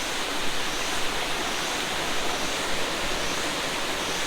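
Waterfall and its stream rushing, a steady even hiss of falling water with no change in level.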